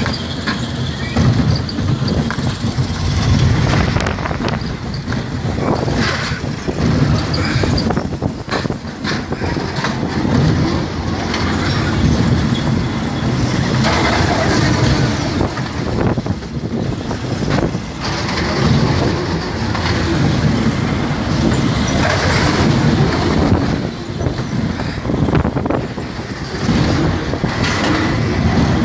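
Spinning wild mouse roller coaster car running along its steel track, heard from on board: a steady low rumble from the wheels with scattered knocks and rattles.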